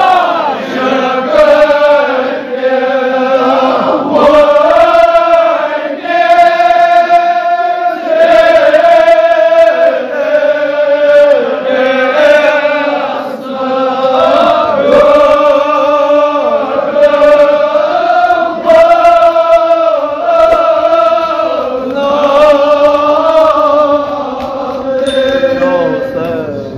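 Men chanting a Kashmiri marsiya, a Shia mourning elegy, in long held, wavering notes, phrase after phrase.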